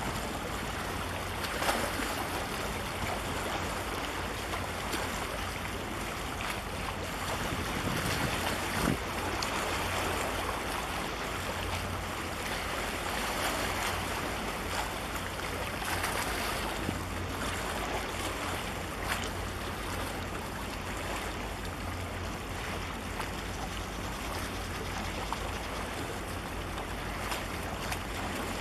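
Steady wind rumbling on the microphone over the wash of choppy sea water, with a few faint splashes.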